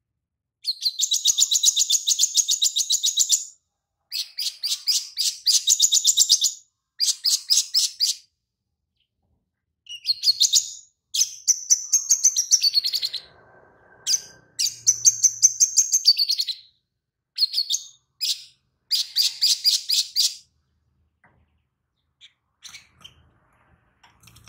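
Caged sogon sunbird singing in repeated bursts of fast, high, trilling chatter, each one to three seconds long with short pauses. Its song is filled with lovebird phrases. The song stops about four seconds before the end, leaving a few faint ticks.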